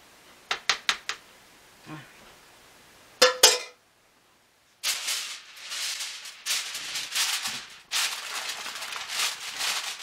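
A metal spoon clicking a few times against a disposable aluminum baking pan, then a brief louder clank. Then a sheet of aluminum foil crinkling steadily as it is pulled off the roll and pressed over the pan.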